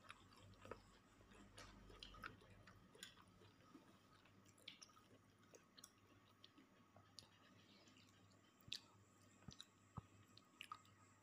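Near silence with faint, scattered small clicks and smacks of a person eating by hand and chewing, over a faint steady hum.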